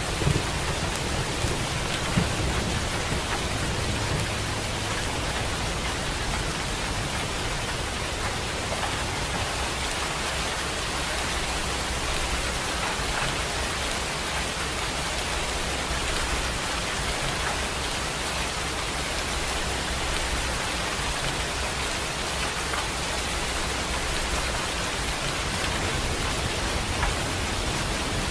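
Steady heavy rain falling on surfaces, an even hiss. A low thunder rumble dies away over the first few seconds.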